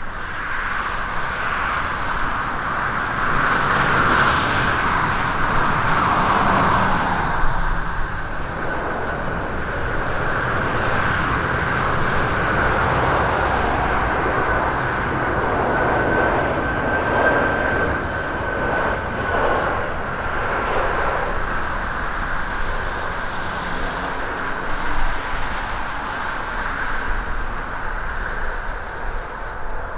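Boeing 747-400 freighter's four jet engines on a landing approach: steady loud jet noise with a high whine running through it.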